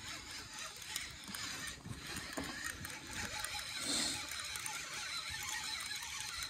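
Fishing reel being cranked, its gears and pawl clicking, while a hooked fish is played, with a louder moment about four seconds in.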